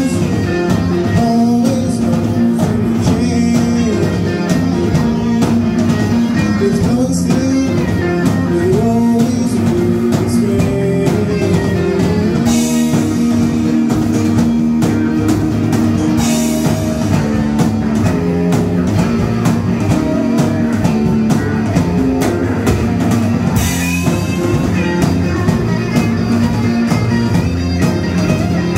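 Live rock band playing: electric guitar, bass and drum kit, with crash cymbals struck every few seconds.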